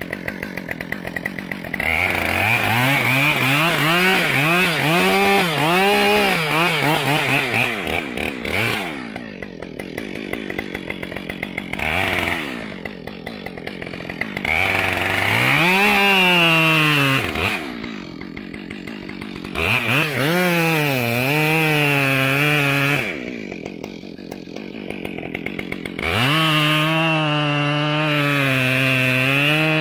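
Chainsaw revving in several bursts as it cuts wood, its pitch wavering and sagging under load, then dropping back to idle between cuts. It holds a steady high speed for the last few seconds.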